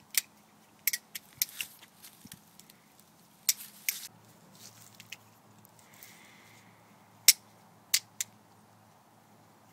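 Handmade Filipino balisong (butterfly knife) being flipped: sharp metal clicks and clacks as the handles and loose latch strike the tang and each other, in irregular bursts with pauses between moves. The latch swings free because the knife has no latch gate.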